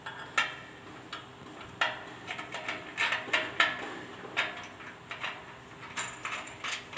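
Irregular metallic clinks and taps from a steel nut and bolt being handled and worked at a joint of a painted steel hospital bed frame, busiest around the middle, over a faint steady high whine.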